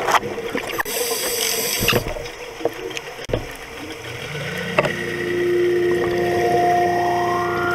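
Underwater scuba sound: a hissing rush of exhaled regulator bubbles with scattered clicks in the first two seconds. About five seconds in, a low, steady droning musical note fades in.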